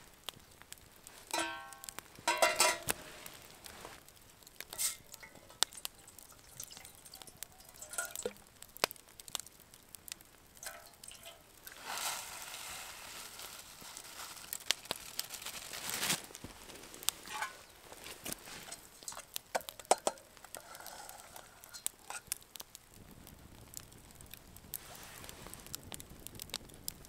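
Wood campfire crackling with frequent sharp pops and snaps. About two seconds in, a short metallic squeal as the stainless steel pot is shifted on the wire grill grate; around the middle, a few seconds of hissing pour as rice goes into the pot.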